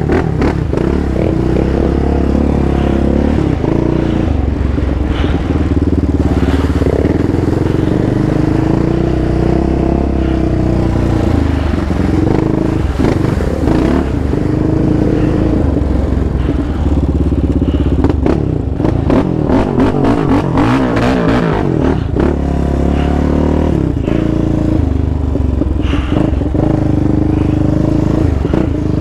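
Yamaha Raptor 700 sport quad's single-cylinder engine running under load on a dirt trail, its pitch rising and falling with the throttle. Rattling and clatter from the quad bouncing over rough ground.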